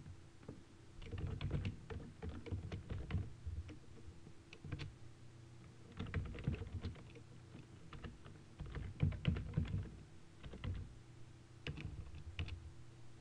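Typing on a computer keyboard: several quick runs of keystrokes separated by short pauses, over a faint steady hum.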